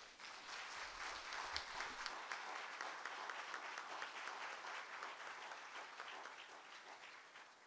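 Church congregation applauding after a sung solo, a steady patter of many hands that fades out gradually toward the end.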